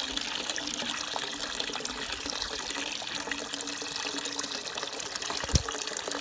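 Water poured from a bowl into a styrofoam box of water holding a fish: a steady splashing trickle as the water is mixed in to acclimatize the fish. A short low thump about five and a half seconds in.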